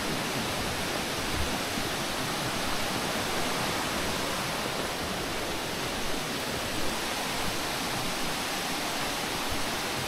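Waterfall and stream rushing steadily: an even hiss of falling water.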